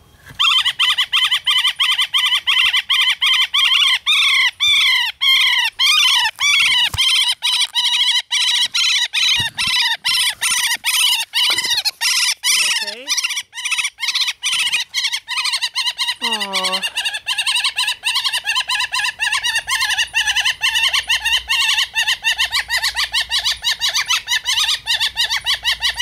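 Young northern flicker calling nonstop from inside a woodpile: a loud, unbroken run of calls repeated several times a second.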